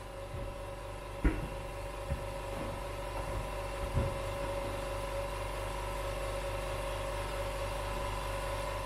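ProBalance BL502-100 tire changer's 100 V electric motor running with a steady hum while a tire is being taken off its wheel, with a few knocks from the tire and rim, the loudest about a second in.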